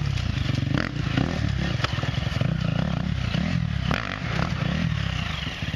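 Dirt bike engine running at low speed with throttle blips as the bike picks its way over loose rocks, with sharp knocks and clatter from the tyres striking the rocks a few times.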